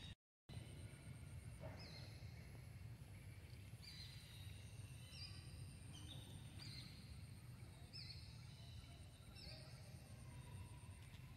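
Faint outdoor ambience: a bird repeating short, high whistled notes that each slide slightly downward, about one a second, over a steady high insect whine and a low rumble. The sound cuts out for a split second at the start.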